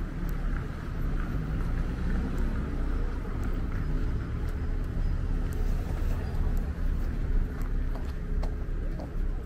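Street ambience: a steady low rumble of road traffic, with faint scattered clicks.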